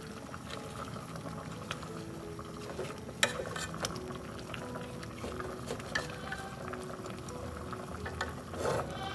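Water bubbling at a boil in a pot of corn cooking, with a sharp clink a little after three seconds.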